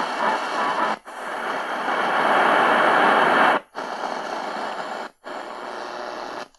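Shortwave static hissing from a C.Crane CC Skywave radio, played through the ICStation GY20915 amplified dual speaker kit. The hiss cuts out briefly several times as the radio steps between shortwave presets.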